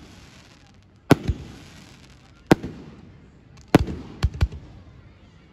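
Aerial firework shells bursting overhead: five sharp bangs, the last three close together, each trailing off with echo and hiss.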